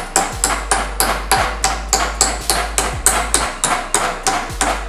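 Hammer tapping a metal shim into the bore of a scooter's triple-tree fork clamp, a quick, even run of sharp metallic taps at about four a second, driving the shim in until it sits flush.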